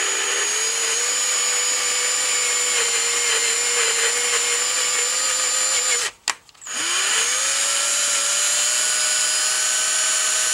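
Power drill running a thread tap into a hole in a 3D-printed PLA part, its motor whining steadily. About six seconds in it stops with a click, then spins up again, its pitch rising and settling slightly higher than before.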